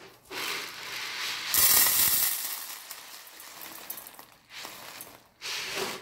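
Rustling and rattling of a plastic bird-food container being handled, with a louder hissing rush about one and a half seconds in and another near the end.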